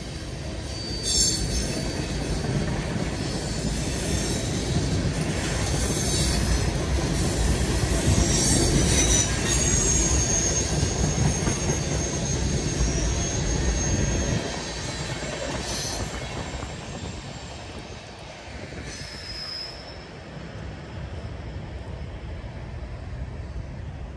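Freight train's tank cars and boxcars rolling past on the rails: a dense wheel-and-rail rumble with a few sharp clanks and a thin high wheel squeal. The rumble drops away about two-thirds of the way through to a fainter rolling sound.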